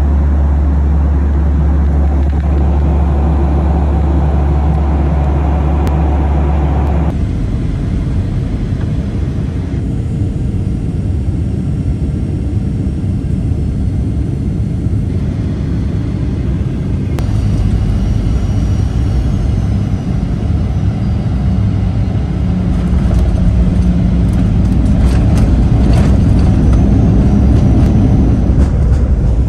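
Jet airliner engines heard from inside the cabin: a loud, steady, low drone through descent and landing. The sound changes abruptly twice, then grows louder near the end with a run of rattling knocks as the plane rolls down the runway.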